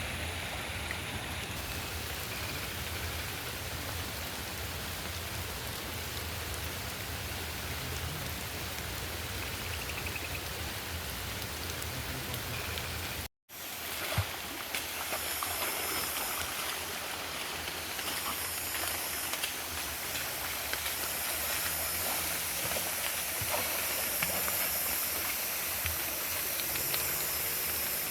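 A river running steadily. After an abrupt cut about thirteen seconds in, a hissier sound of rain falling, with scattered small ticks, takes over.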